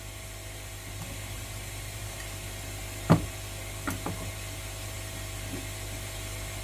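A steady low hum, with one sharp knock about three seconds in and two lighter taps about a second later.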